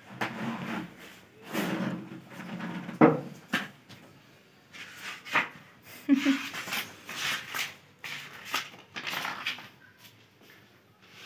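Rustling of a thin white protective sleeve being pulled off a glass-topped induction cooktop, then paper rustling as a manual and card are handled. Uneven scrapes and a few sharp knocks, the loudest about three seconds in.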